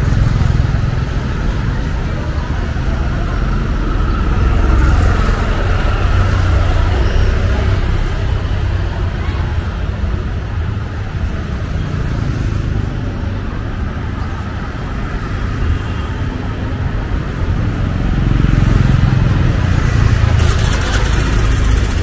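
Busy city street ambience: road traffic running steadily under the chatter of passers-by, growing louder around five seconds in and again near the end.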